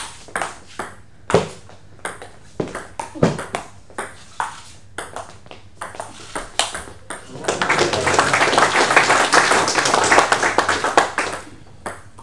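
Table tennis rally: the celluloid ball clicks sharply off the bats and the table several times a second. About seven and a half seconds in, spectators clap for about four seconds, the loudest part.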